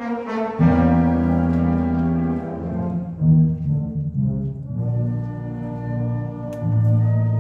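Town wind band playing live. Low brass, tuba among them, comes in with loud held notes about half a second in, beneath the higher melody, and swells again near the end.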